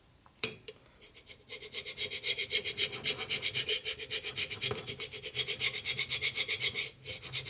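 Solid carbide hand scraper scraping the heat-dissipating coating on the top surface of a Harley Evo cylinder in quick short strokes, about six a second. The strokes start about a second and a half in and stop just before the end, after a single click shortly after the start. The coating is very thin and is hardly coming off.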